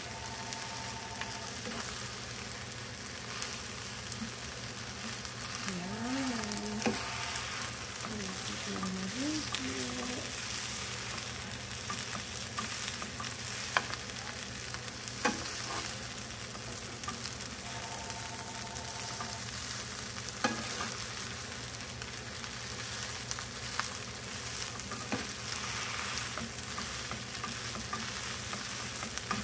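Fried rice with salmon sizzling in a hot skillet while it is tossed and stirred with a wooden spatula and a metal spoon: a steady frying hiss with occasional sharp clicks of the utensils against the pan.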